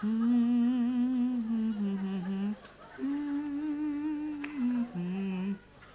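A man humming a slow, wordless tune as background music, in long held notes with a wavering pitch that step down at the end of each phrase, broken by two short pauses for breath.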